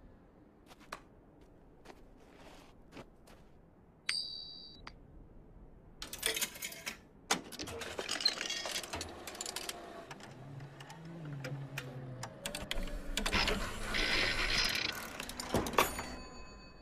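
Cigarette vending machine mechanism clicking and rattling, with a short high ding about four seconds in; from about six seconds on the clatter of metal clicks and knocks gets busier and louder.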